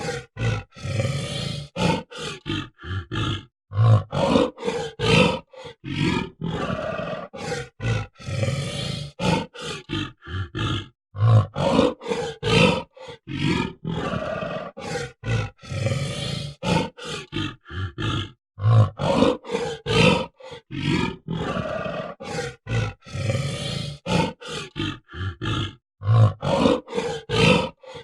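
Gorilla sound effect: a string of short, chopped calls with a few longer pitched calls and low thuds between them. The sequence repeats about every fifteen seconds.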